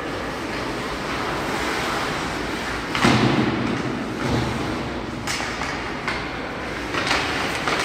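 Ice hockey play in a rink: a steady wash of arena noise, with a loud thud about three seconds in and sharper knocks about five and seven seconds in, from puck, sticks and players hitting the boards.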